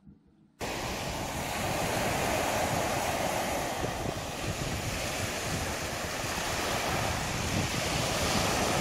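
Ocean surf washing onto a sandy beach, a steady rush of waves with wind on the microphone. It cuts in suddenly about half a second in.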